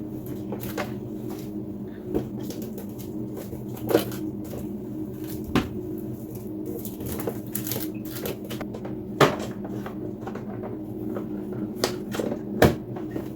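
Scattered light knocks and clicks of vegetables and plastic containers being handled and set into a fridge, over a steady low hum.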